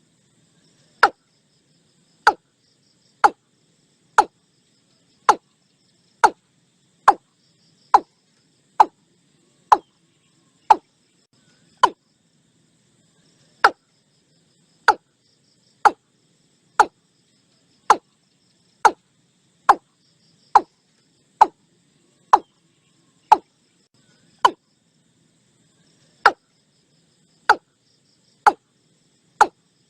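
Watercock calling: a long, regular series of short, sharp notes, about one a second, broken by a couple of brief pauses. A faint high hiss runs underneath.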